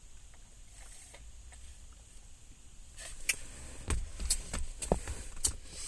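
Handling noises inside a car: after a quiet stretch, a run of clicks, knocks and rustles starts about three seconds in as a drink cup and food packaging are moved about.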